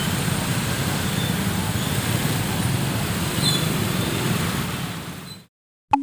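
Street traffic noise of a jammed city road: cars, minibuses and motorcycles running at a crawl, a steady rumble that fades out about five seconds in.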